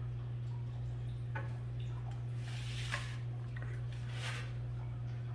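A steady low electrical hum, with a few faint clicks and rustles of handling.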